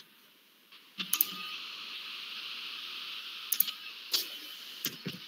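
About half a dozen sharp clicks of a computer keyboard and mouse in use, over a steady hiss that comes in about a second in.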